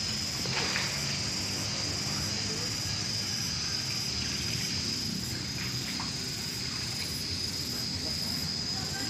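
Steady high-pitched insect drone, unbroken throughout, over a faint hiss.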